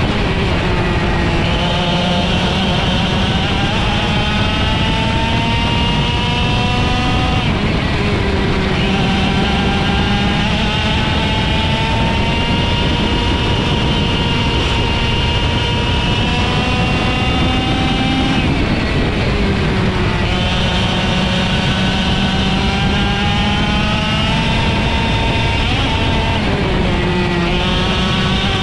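IAME X30 125cc two-stroke kart engine at race pace. Its pitch climbs steadily for several seconds at a time and drops sharply about four times, as the kart slows for corners and then pulls away again.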